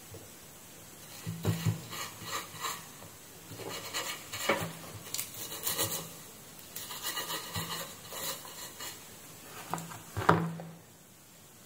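Intermittent scrubbing and scraping as a tiny SMD diode held in tweezers is brushed on a rubber work mat, with a few sharp clicks of the tweezers, the loudest about ten seconds in.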